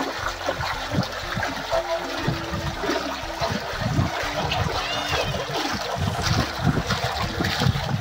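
Strong spring water welling up into a concrete basin, bubbling and splashing steadily.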